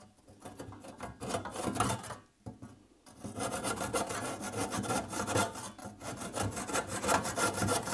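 Coarse-toothed aerated-concrete handsaw cutting through a Ytong block: rasping back-and-forth strokes. A first short run of strokes, a brief pause about two and a half seconds in, then steady continuous sawing.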